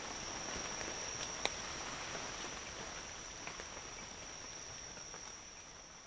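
Congo rainforest ambience: a steady, high-pitched insect drone over a soft hiss, with a few scattered ticks, one sharper about a second and a half in. The whole bed fades out gradually toward the end.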